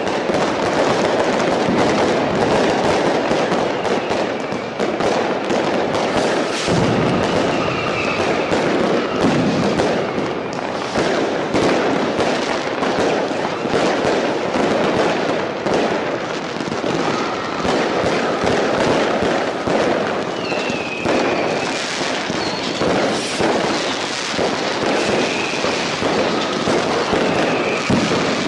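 Dense New Year's fireworks: constant crackling and banging of firecrackers and bursting shells, with short whistles from whistling fireworks cutting through several times.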